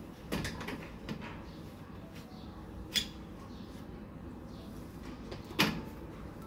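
A few scattered knocks and clicks of objects being handled and set down: several in the first second, a sharp click about three seconds in, and a louder knock near the end.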